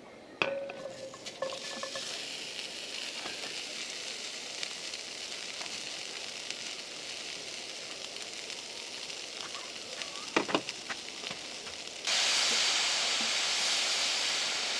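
Food frying in a pan, sizzling steadily, with a clink about half a second in and a few light clicks later. About twelve seconds in the sizzling jumps suddenly much louder.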